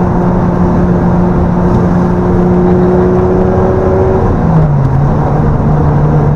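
A boosted 2JZ inline-six in a Lexus SC300 running under load, heard from inside the car: a steady engine note that drops to a lower pitch a little over four seconds in.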